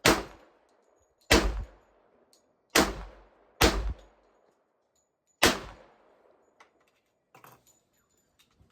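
Five gunshots from a firearm, fired at an uneven pace over about five and a half seconds, each followed by a short echoing tail. A few faint clicks follow near the end.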